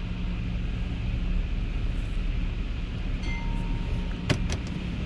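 A truck's engine running steadily at low speed, heard from inside the cab. A brief chime-like tone sounds about three seconds in, and a few sharp clicks follow about a second later.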